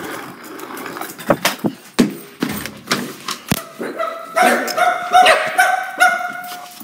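A dog whining and yipping in a run of high, drawn-out cries through the second half, after several sharp knocks and clatters.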